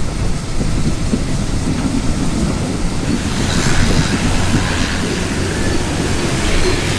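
Vintage four-wheeled railway carriages running along the track: a steady rumble and rattle of wheels on rails, heard from aboard, growing hissier from about halfway through.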